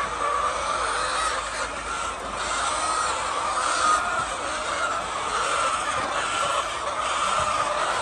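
A large flock of chickens clucking and calling continuously, a dense steady chatter.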